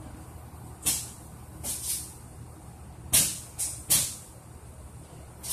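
Several short bursts of hiss: one about a second in, a pair around two seconds, and three close together just after three seconds, over a steady low hum.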